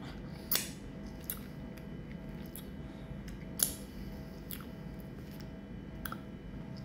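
Mouth sounds of eating yellow passion fruit pulp: a handful of short, sharp wet smacks and seed crunches spread over several seconds, above a steady low hum.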